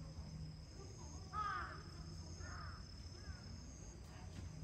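Large-billed crow cawing: one loud caw about a second and a half in, followed by two fainter caws.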